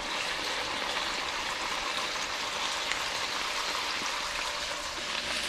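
Slices of moose heart sizzling steadily in oil and fat in a frying pan.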